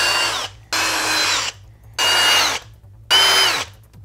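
Electric drill run in short trigger pulls, four in about four seconds, each a motor whine that drops in pitch as it is let go. The drill is grinding the screw holes of an aluminium enclosure panel down to bare, shiny metal so the case screws make a sound earth connection.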